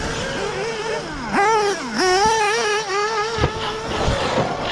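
Electric RC buggy's brushless motor whining, its pitch rising and falling with the throttle and dropping sharply twice in the first two seconds. There is a brief knock about three and a half seconds in.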